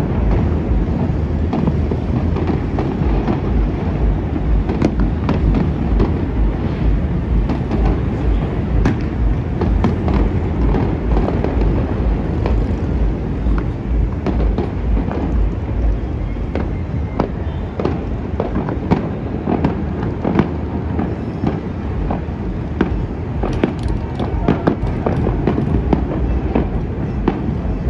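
Distant New Year's fireworks going off without a break: many overlapping booms and crackles over a constant low rumble, with a cluster of sharper cracks near the end.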